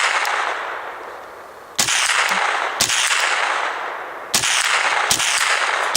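A .22 rifle firing single shots, four in all, spaced about one to one and a half seconds apart. Each sharp crack is followed by a long fading echo.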